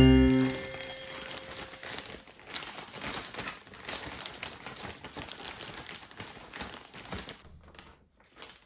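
Plastic zipper bag crinkling and rustling in irregular small crackles as it is handled and kneaded, working salt and sugar into the sliced daikon inside.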